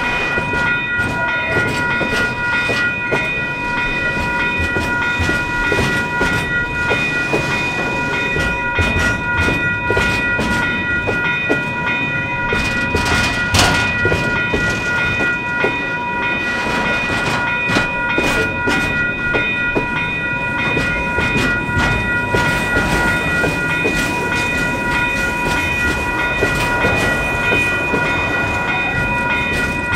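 Train running on the rails, its wheels clicking over rail joints, with a steady high-pitched whine of several tones throughout.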